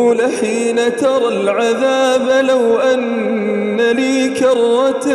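A man's voice in melodic Quran recitation (tajweed), drawing out long, ornamented notes that bend and waver in pitch without a break.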